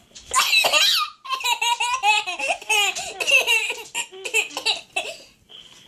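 Toddler laughing hard: a long run of high-pitched, breathy laughs and giggles that trails off near the end.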